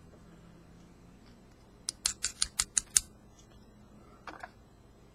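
A quick run of about seven sharp clicks in about a second as the small parts of a disassembled pin-tumbler lock are handled, then two fainter clicks.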